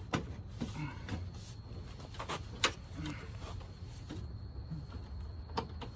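Plastic front grille of a Volkswagen Golf being pushed and tapped into place by hand: a few sharp plastic clicks and knocks, the loudest about two and a half seconds in, over a low steady hum.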